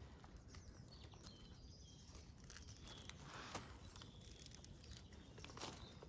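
Faint rustling and crumbling of soil with a few soft ticks, as a clump of snowdrop bulbs is lifted and pulled apart by hand.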